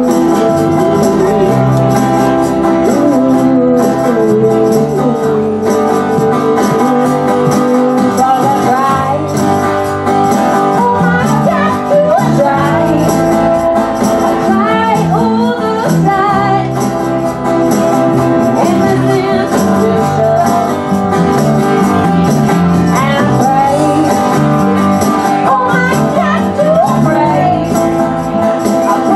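A live band playing: acoustic guitar, electric bass, drums and a shaken tambourine, with a singing voice at times.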